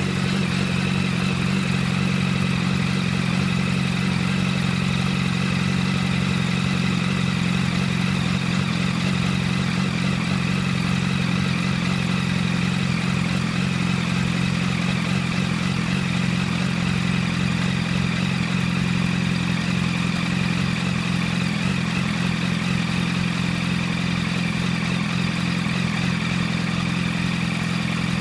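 2006 Yamaha R1's inline-four idling steadily through a full titanium Arata exhaust as it warms up to temperature after an oil change.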